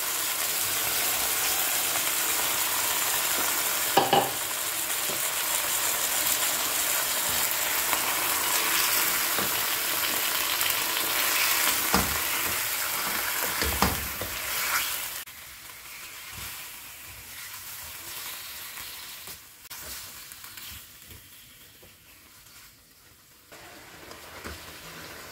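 Yogurt-coated potato slices sizzling and frying in hot oil in a karahi while being stirred, with a few sharp knocks of the utensils against the pan. About fifteen seconds in the sizzle drops much quieter.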